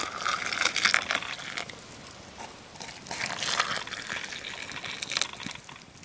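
Water poured from a metal pot into an enamel mug over a tea bag and citrus slices. The pour comes in two spells, the first at the start and the second from about three to five seconds in.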